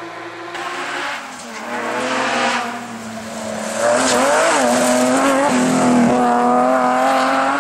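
Rally car engine at high revs, its pitch dipping and climbing through gear changes, getting much louder about four seconds in and then holding a steadier note.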